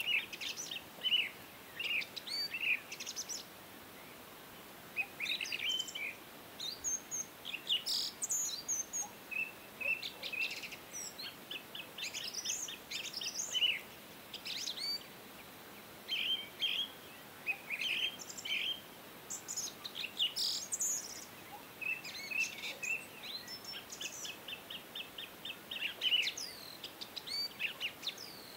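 Songbirds chirping and singing throughout, in short chirps and quick trills with brief pauses, over a faint steady hiss.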